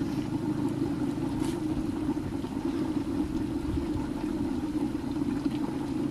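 Wood fire burning in a mud hearth under a covered metal pot, a steady low rumble with a few faint ticks.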